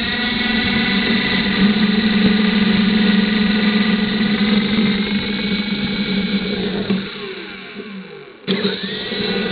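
Small RC helicopter's motor and rotor whining steadily. About seven seconds in the whine winds down, falling in pitch and fading, then cuts back in abruptly at full speed near the end.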